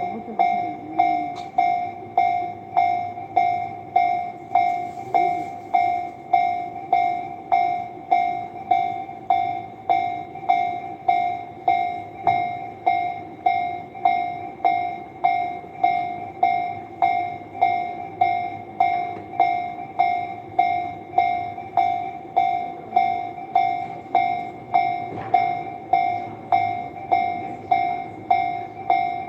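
Japanese railroad crossing warning bell ringing steadily: the same electronic 'kan-kan' tone repeats evenly, a little under two strokes a second, signalling that a train is approaching and the barriers are down.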